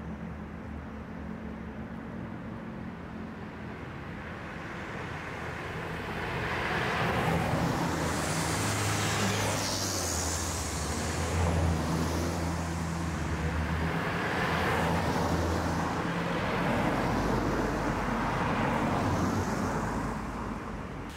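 Road traffic going by: several vehicles pass one after another, with engine hum and tyre rush swelling and fading. The loudest pass comes about ten seconds in.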